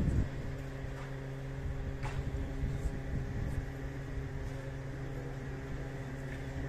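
A steady mechanical drone from an engine running at a constant speed, with a few faint clicks.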